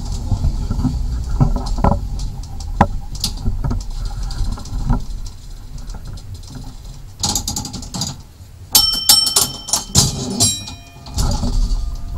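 Vintage 1934 tram running along its track, with a low rumble and scattered clicks and rattles from the car. From about nine seconds in come a quick run of sharp metallic strikes, each left ringing.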